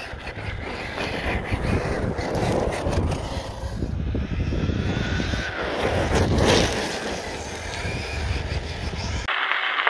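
Electric RC car with a Surpass Hobby brushless motor driving fast over rough asphalt and gravel: a steady run of tyre rolling and scraping with its motor whining, under heavy wind rumble on the microphone. Shortly before the end the sound switches abruptly to a brighter hiss.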